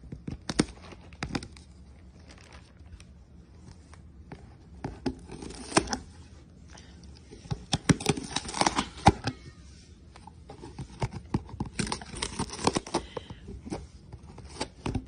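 A cat chewing and biting into the edge of a cardboard box, its teeth crunching and tearing the cardboard. The crunches and rips are irregular and sharp, coming in clusters with short pauses between them.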